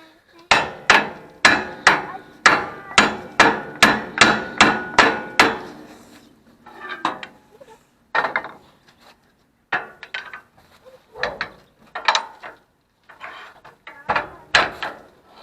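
A hammer striking a plow mounting pin to drive it out: a quick run of a dozen or so hard blows, two to three a second, then slower, scattered knocks through the rest.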